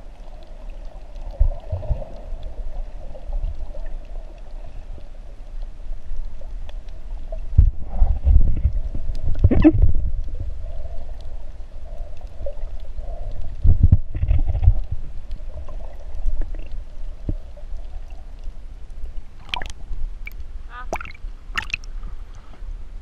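Underwater sound from an action camera in its housing while snorkeling: muffled water gurgling with low thumps of water moving against the housing, over a faint steady hum. Near the end come a few sharp splashes as the camera breaks the surface.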